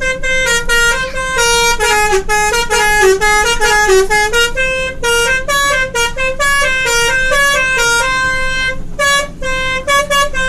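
Indonesian 'telolet basuri' multi-tone bus horn playing a tune: a quick run of short horn notes stepping up and down, with a few longer held notes.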